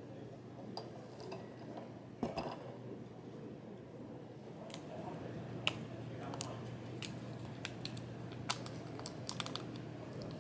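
Scattered light clicks and taps in quick irregular runs over a steady low hum, with one louder knock about two seconds in.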